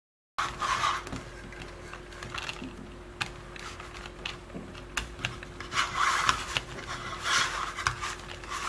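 Speaker wire being hand-wound into a flat pancake coil on a CD spindle under a clear plastic divider: irregular scratchy rubbing of wire and palm over the plastic, in several short bursts, with small clicks. A faint steady hum runs underneath.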